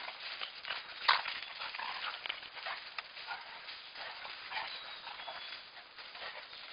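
Two dogs play-fighting in snow: short, irregular dog noises and scuffling, with one sharp, louder sound about a second in.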